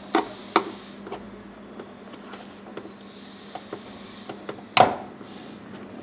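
Hand-work on car interior parts: a run of sharp clicks and knocks, two near the start and the loudest just under five seconds in, with lighter taps between.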